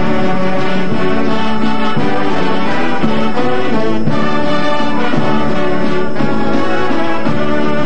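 High school marching band playing a brass-led ensemble arrangement, recorded live in the band room.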